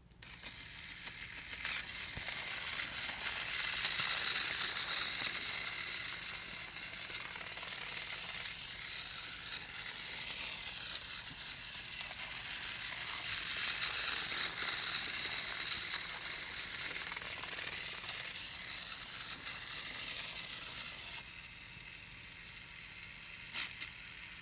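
Battery-powered TOMY toy train engine, James with his tender, running on its track: a steady high whir of the small motor and gears with a rattle of wheels and occasional clicks, growing louder and fainter as it moves. It starts suddenly and stops just before the end, running steadily now that the corroded tender battery terminal has been replaced.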